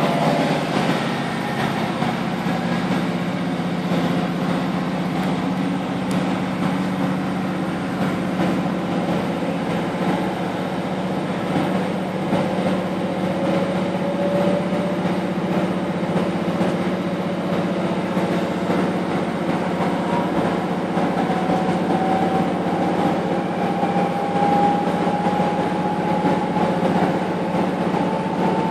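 Class 156 Sprinter diesel multiple unit heard from inside a carriage as it pulls away and gathers speed: the underfloor diesel engine runs with a steady drone under load. A whine rises slowly in pitch through the second half as the train speeds up.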